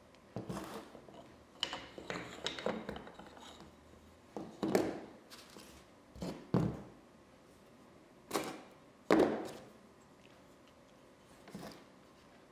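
Antique wooden plow plane and small tools being handled and set down on a hardboard workbench top: a series of irregular wooden knocks and clatters, the loudest about five and nine seconds in.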